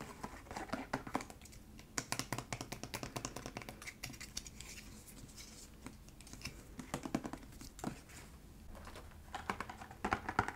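Quick, crisp tapping and clicking on product packaging, an ASMR tapping trigger: a dense run of taps in the first half, scattered taps after, and another flurry near the end.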